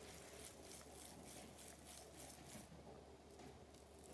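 Near silence, with faint soft rubbing and squishing as raw minced pork and beef is rolled into a ball between the palms.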